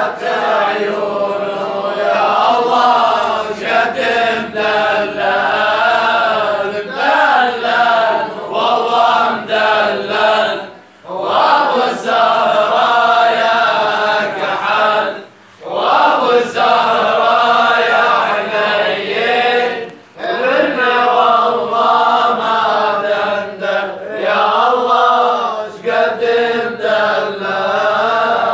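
A man chanting madih, an Islamic praise song, in long wavering melodic phrases, with a few short breaks between the phrases.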